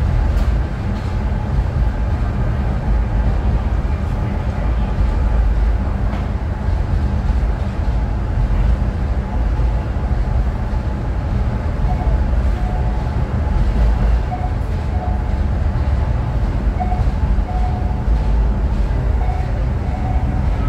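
Ocean Express funicular car running uphill through its tunnel, heard from inside the cabin as a steady low rumble.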